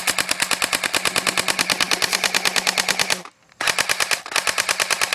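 Airsoft MP5 firing on full auto: a rapid, even stream of shots with a steady hum under them. The burst breaks off briefly a little past three seconds in, then a second burst runs until the magazine empties.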